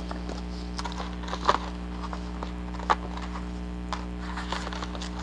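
Loose book pages being handled and stacked, with soft rustling and a few light taps, over a steady electrical mains hum.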